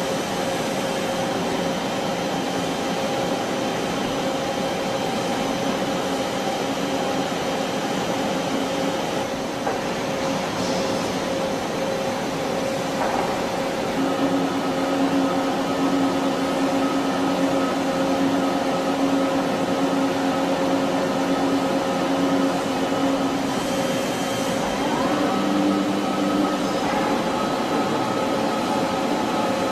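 Doosan PUMA CNC lathe running: a steady machine hum with several held whining tones. About halfway through a louder, lower whine comes in, and the tones shift again near the end.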